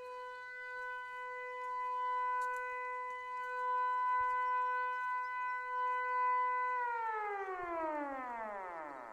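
Civil defence siren sounding a missile-danger warning: one steady, rich tone held for about seven seconds, then falling away in pitch as it winds down near the end.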